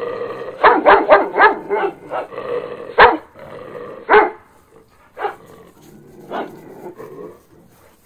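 Puppies yipping and barking in short calls: a quick run of about five, then two louder single barks, then a few fainter ones that trail off near the end.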